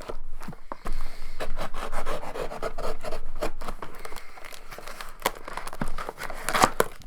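Cardboard shipping box being forced open by hand: a continuous run of scraping, rubbing and tearing of cardboard, with many sharp crackles.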